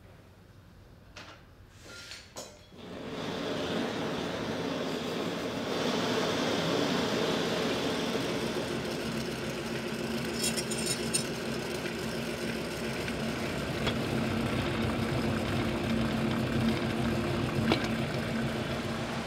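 A few clicks, then about three seconds in a jeweller's rolling mill starts running with a steady mechanical hum, with occasional metallic clicks.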